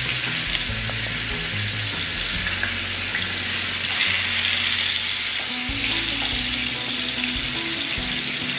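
Masala-marinated chicken pieces sizzling steadily in hot oil in a grill pan, seared over a high flame, with a brief louder flare about four seconds in.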